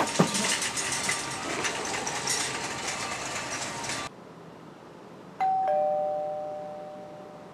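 Doorbell chime: a higher 'ding' followed by a lower 'dong' that ring out slowly, about two seconds after busy background noise with clatter cuts off.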